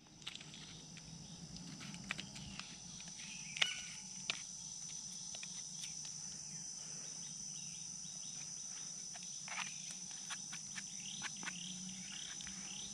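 Insects chirring in a steady high-pitched drone, with scattered small clicks and rustles over it.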